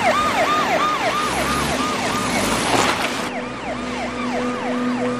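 Police car siren sounding a fast yelp, each cycle jumping up and sliding down in pitch about three times a second. A rushing noise underneath cuts off about three seconds in.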